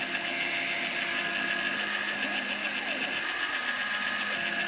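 Proxxon MF70 mini milling machine, converted to CNC, running its spindle motor steadily while isolation-milling copper off a printed circuit board. The axis drives add short rising and falling whines about halfway through as the table moves.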